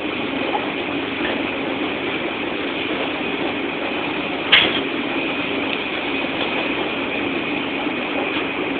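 Washing machine running steadily, a constant mechanical hum and churn, with a single sharp knock about halfway through.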